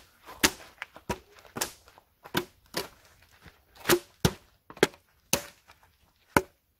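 An empty plastic water bottle slapped back and forth by hand: a rapid string of sharp smacks, about a dozen, often coming in quick pairs.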